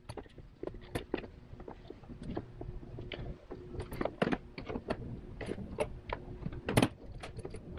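Hands working rubber hoses and plastic line fittings in a car's engine bay: irregular small clicks, taps and rubbing, with one sharper click near the end.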